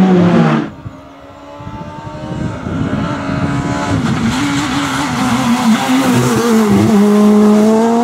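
Škoda Fabia S2000 rally car's naturally aspirated 2.0-litre four-cylinder engine at high revs, growing steadily louder as the car approaches, with a couple of brief dips in the revs. A louder engine sound cuts off abruptly just under a second in.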